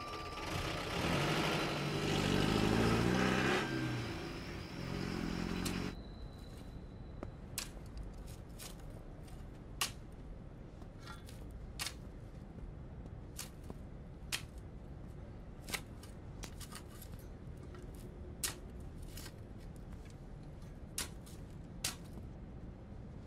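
A car engine revving as the car pulls away, for about the first six seconds. Then a shovel digging into stony ground, with sharp scrapes and clinks every second or two.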